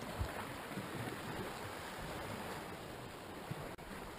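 Sea surf washing against the rocks, a steady rushing wash with a couple of faint knocks.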